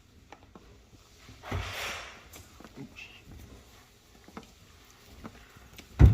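Handling and wiping sounds from cleaning a dishwasher's door and rubber seals with a cloth: scattered small knocks, a short rubbing swish about a second and a half in, and a loud thump near the end.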